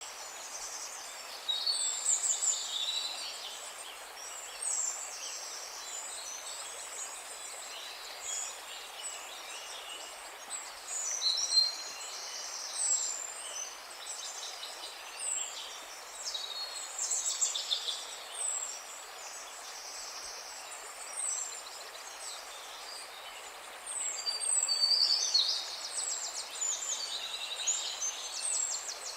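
Several songbirds singing and calling: short high chirps and trills, some in phrases of a second or two, come again and again over a steady background hiss.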